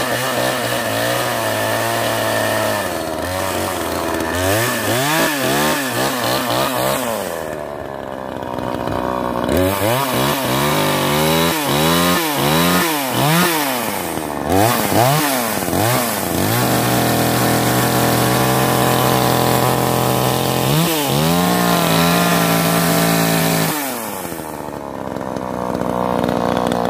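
Radley two-stroke gas chainsaw running, revved up and down again and again with quick throttle blips, held at steady high revs for a few seconds past the middle, and dropping back to idle twice. It has just been started after sitting unused for about a month.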